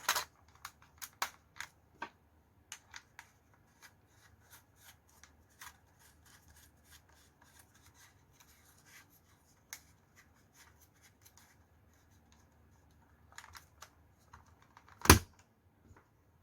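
Small clicks, taps and scrapes of 3D-printed plastic parts being handled and fitted onto an airsoft replica pistol's barrel, with one sharp, much louder knock about fifteen seconds in.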